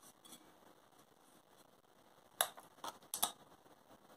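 A few short, sharp ticks and crackles about two and a half to three and a half seconds in, with quiet handling around them. They come from sublimation tape being peeled and pressed down to hold sublimation paper on a metal water bottle.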